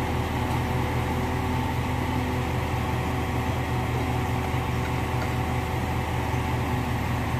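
Mobile crane's diesel engine running steadily, a constant low drone with a few steady tones above it.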